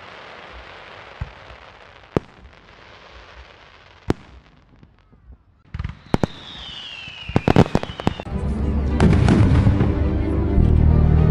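Fireworks: a hiss with a few separate sharp bangs, then a descending whistle about six seconds in followed by a quick run of bangs and crackles. Background music comes in about nine seconds in and plays on.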